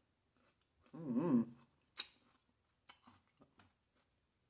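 Close-miked mouth sounds of eating green grapes. About a second in comes a short voiced sound from the throat with a wavering pitch, and after it a handful of sharp, wet clicks of chewing and lip smacking.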